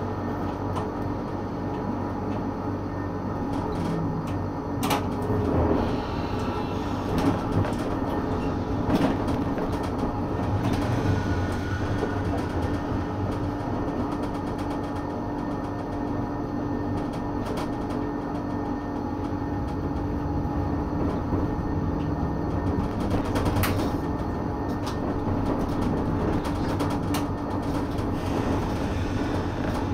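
Brussels tram running along its track, heard on board: a steady motor hum and rolling wheel noise, with a few sharp clicks from the wheels on the rails.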